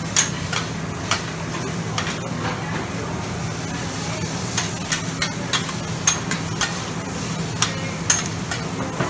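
Food sizzling on a flat-top steel griddle while a cook works two metal spatulas through a stir-fry. Irregular sharp clicks and scrapes of metal on the hot steel, a few ringing briefly, sound over the steady sizzle.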